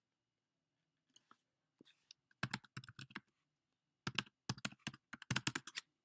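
Rapid sharp clicks and taps in three quick bursts, the first starting about two and a half seconds in, each burst lasting under a second.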